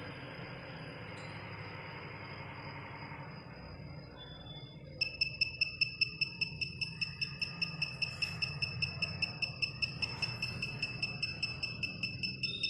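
Piezo buzzer on a homemade CD4017 non-contact AC voltage detector beeping rapidly and evenly, about four short high beeps a second, starting about five seconds in after faint hiss: it is sensing the live mains wiring in the wall socket.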